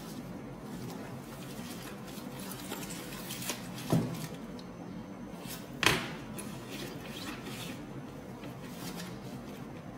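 Gloved hands handling a zippered handbag and its plastic wrapping: faint rustling, with two sharp taps, one about four seconds in and one about six seconds in.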